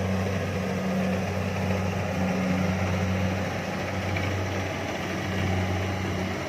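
Rice harvester's engine and machinery running steadily, a constant low hum under a broad mechanical rumble.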